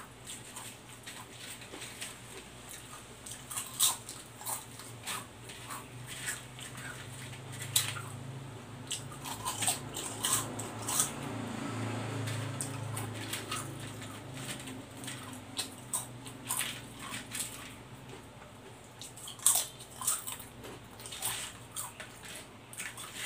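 Potato chips crunching as they are chewed close to the microphone, in short, irregular crisp crackles, along with the rattle of chips being picked up by hand from a plastic tray.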